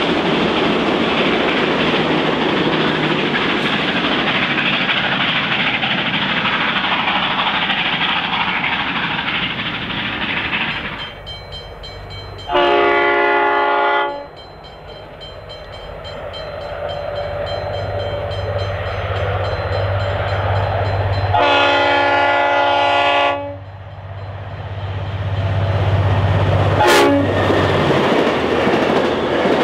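Passenger carriages rolling past with a steady rush of wheel and rail noise. After a cut, an approaching V/Line N class diesel-electric locomotive sounds two long blasts on its multi-note horn, then its engine rumble and wheel noise grow loud as it passes close by.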